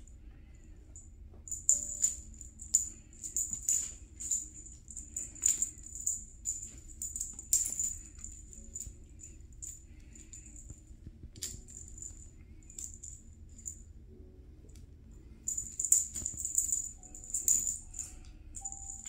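Jingling and rattling of a cat toy knocked about by playing kittens, in irregular bursts: busy for several seconds, quieter in the middle, then busy again near the end.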